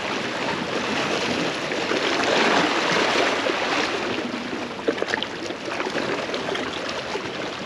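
Sea water washing and sloshing against shore rocks, swelling louder about two to three seconds in, with small splashes and drips throughout.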